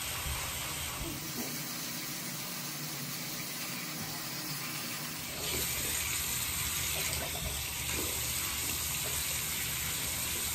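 Bathroom sink faucet running, water streaming into the basin; the flow gets louder about five seconds in.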